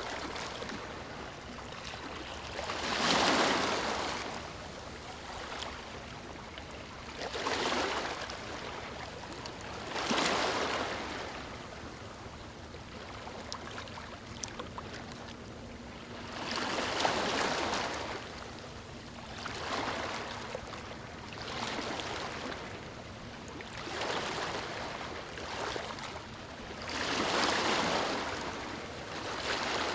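Small, calm waves breaking and washing up on a sandy beach. Each surge of surf swells and fades every few seconds, with a longer lull partway through.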